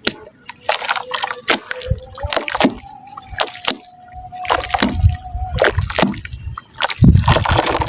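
Soft wet mud crumbling and dropping into water, with an irregular run of wet crunches, drips and small splashes. The loudest, fullest burst comes about seven seconds in.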